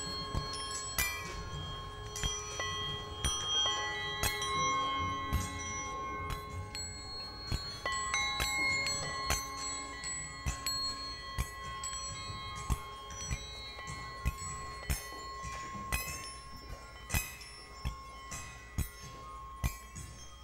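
Improvised experimental music on struck metal: irregular sharp strikes, each leaving bell-like ringing tones at several pitches that overlap and hang, over a low rumble.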